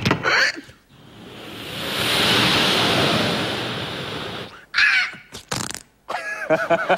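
A man making a vocal sound effect into a microphone with his mouth: a hissing rush that swells over a couple of seconds and then fades, followed by two short sharp bursts.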